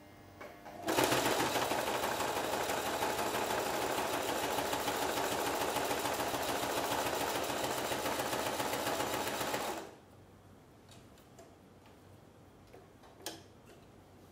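Singer Heavy Duty home sewing machine running at a steady speed, stitching through thick 8 oz (3 mm) cow shoulder leather. It starts about a second in and stops after about nine seconds, followed by a few faint clicks as the leather is handled.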